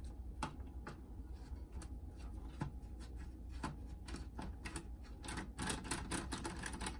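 Screwdriver clicking and scraping against a screw and the metal chassis inside a cassette boombox, a run of irregular small clicks and taps that crowds together near the end. The screw won't come out.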